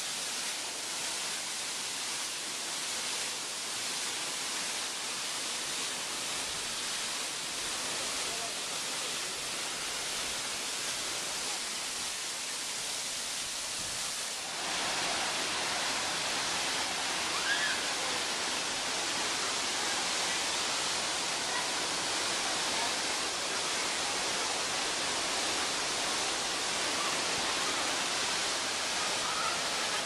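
Steady rushing of water from a waterfall pouring over rock. About halfway through it changes abruptly to a louder, brighter rush of water over stream rocks.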